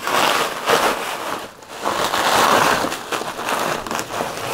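Plastic bubble wrap crinkling and rustling as it is handled and pulled aside, in uneven surges.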